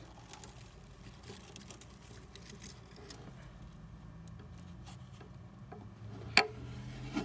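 Faint scattered ticks and scratches of a hand moving over the floor of a glass reptile tank to scoop up a baby leopard gecko, with one sharp click about six seconds in.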